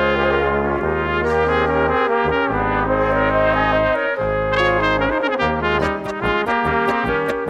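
Brass music, with long held low bass notes under the melody that give way to shorter, quicker notes after about five seconds.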